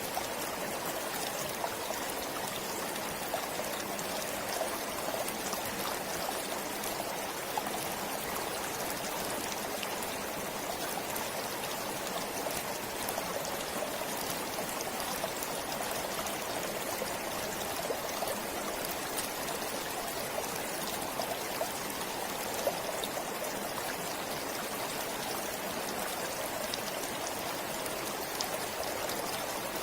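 A forest stream running over rocks, a steady rush of flowing water with fine splashing and trickling.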